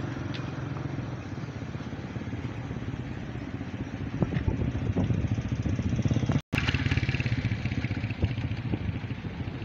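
Motorcycle engine running steadily, a low rapid putter, with a few faint clicks; the sound cuts out completely for an instant about six and a half seconds in.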